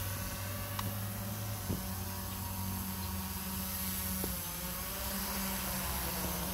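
Autel Evo drone's propellers buzzing with a steady hum over a hiss as the drone descends to land.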